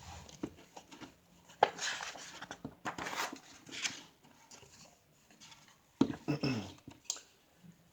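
Pages of a large picture book being handled and turned: paper rustling with light knocks and clicks, busiest about two to four seconds in.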